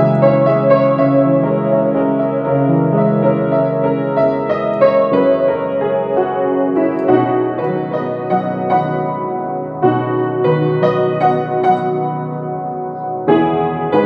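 Piano music: a slow melody of struck notes over held chords, with a new, louder phrase beginning near the end.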